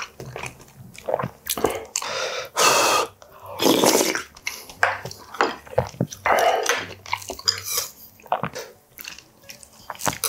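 Close-miked eating sounds: several slurps of spicy pollack roe soup about three, four and six seconds in, with chewing and the small clicks of a spoon and chopsticks against the bowls.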